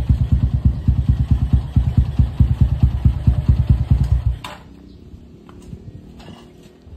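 Honda GL100's single-cylinder four-stroke engine idling with a steady rapid pulse, then switched off about four seconds in. A sharp clunk follows as it stops, then a few faint knocks.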